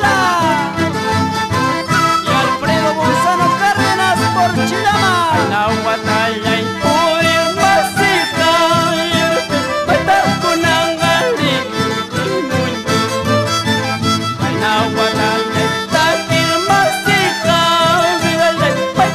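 Andean folk dance music in the sonqo sua style: a violin carries the melody with sliding notes over a steady, even beat.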